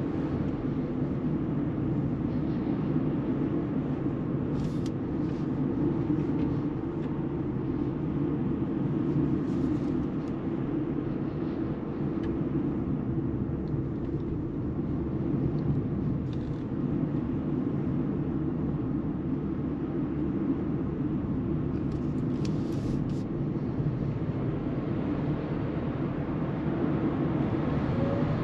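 Steady tyre and road noise, with some wind, heard inside the cabin of a Mercedes EQB 350 4MATIC electric SUV cruising on a damp road. There is no engine note. A few brief faint ticks come through now and then.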